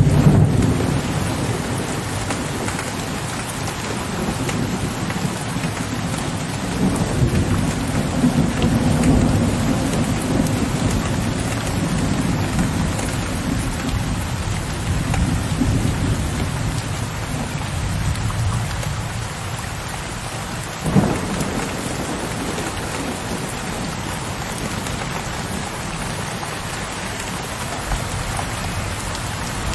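Steady rain pattering on a window ledge under low, distant rolling thunder that rumbles loudest at the start, swells again and then dies away about two-thirds of the way through. A single sharp crack comes about 21 seconds in, after which mostly the rain remains.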